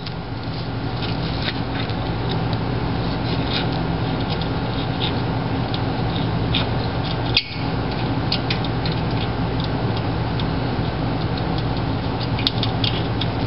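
Steady low machine hum, with scattered light clicks and metal rubbing as the sway bar drop-bracket bolts are worked in by hand.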